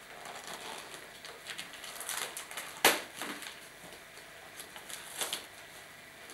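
Wrapping paper rustling and crinkling in bursts as a small present is unwrapped by hand, with one louder sharp crackle about three seconds in.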